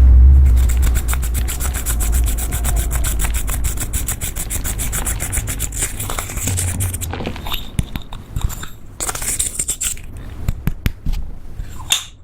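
Rapid rubbing and scraping strokes, many per second and fairly even at first, then slower and more scattered scrapes and clicks in the second half, as makeup is worked into butter slime.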